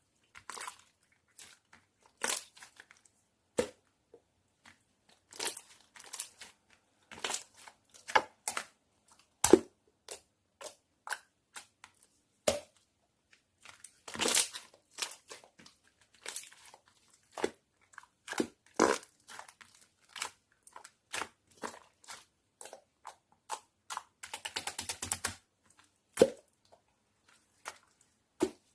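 Slime being squeezed and pressed by hand, giving an irregular series of sharp pops and clicks, with a quick run of crackling about twenty-four seconds in.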